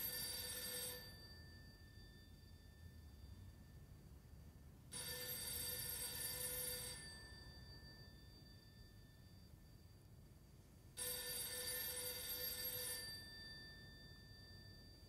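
Telephone ringing in rings of about two seconds, each followed by about four seconds without ringing; three rings in all, the first already underway when the sound begins.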